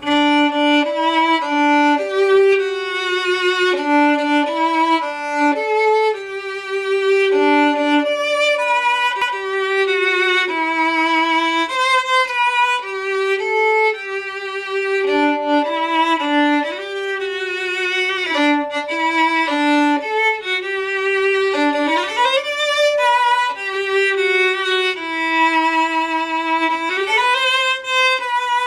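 Violin playing a bowed melody with vibrato, sliding up in pitch twice in the second half.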